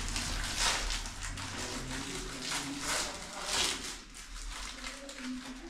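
A small plastic or foil packet crinkling as it is handled and opened, in about four short rustles.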